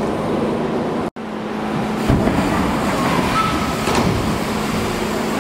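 BMX bike tyres rolling on a wooden ramp over a steady hall hum, with a louder rumble about two seconds in. The sound cuts out for an instant about a second in.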